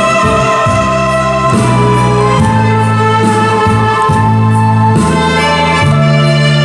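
Saxophones playing a slow, sustained melody together, with held low bass notes beneath that change about once a second.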